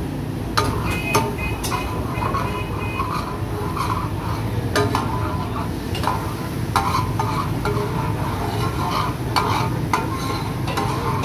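Flat metal spatula scraping, tapping and stirring across a large steel tawa griddle, in irregular strokes with short metallic rings, as chicken pieces fry in sizzling oil. A steady low hum runs underneath.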